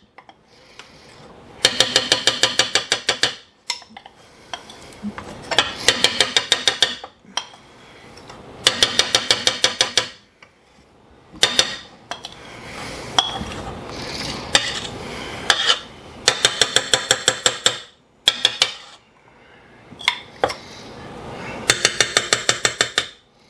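Wire balloon whisk beating buttercream in a stainless steel pot as melted chocolate is worked in: runs of rapid clinking strokes against the metal, about seven or eight a second, each run lasting one to two seconds with short pauses between.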